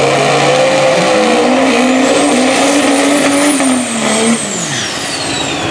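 Drag race car engine at full throttle down the strip, its pitch climbing with a high whine rising above it. About four seconds in the engine note drops away as the car lifts, and the whine slowly falls.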